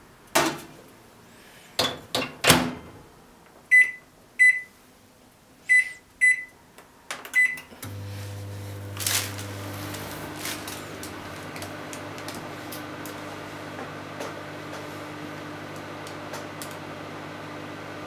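A bowl set down inside a microwave oven and the door shut with a few knocks, then five short button beeps as the time is set. About eight seconds in, the microwave starts and runs with a steady hum, heating a bowl of pudding mixture.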